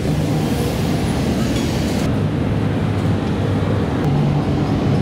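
Steady street traffic noise from passing motorbikes and cars; the upper hiss falls away about two seconds in.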